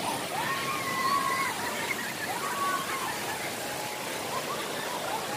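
Waterfall and stream water rushing steadily, with a few long, drawn-out calls from people's voices over it.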